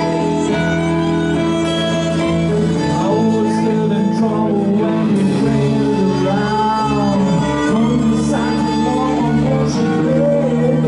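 Live rock band playing loudly, with electric guitars and a violin.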